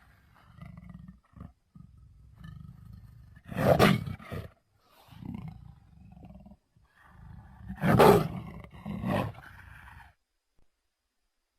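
Utahraptor creature sound effect: a low rumbling growl with two loud roars, about four and eight seconds in, and a shorter roar just after the second. The growl cuts off about ten seconds in.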